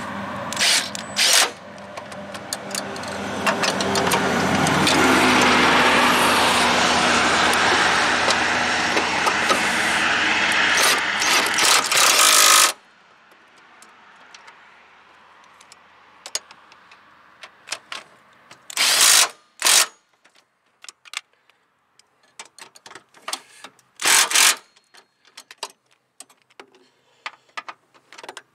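A loud steady rushing noise for about twelve seconds that cuts off suddenly. Then comes a quieter stretch of scattered clicks and knocks from hand tools on bolts in an engine bay.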